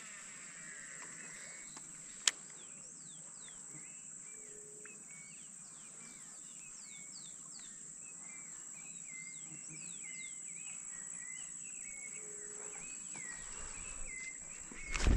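Wild birds chirping and whistling repeatedly, with short falling and stepped notes, over a steady high-pitched hum. There is a single sharp click about two seconds in, and a sudden loud noise at the very end.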